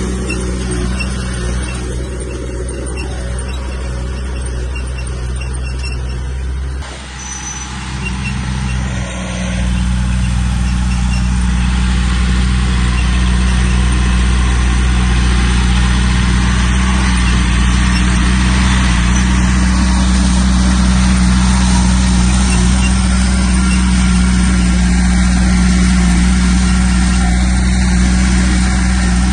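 Heavy diesel engine of earthmoving equipment running steadily, with a brief drop in level about seven seconds in, after which it runs louder.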